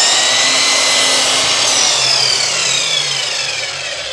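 Electric chop saw running at full speed with a high whine as it makes a cut through wood. From about halfway the trigger is released and the blade coasts down, the whine falling in pitch and slowly fading.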